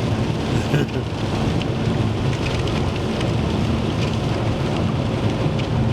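Steady low rushing noise of wind during a snowstorm, with a brief knock about a second in.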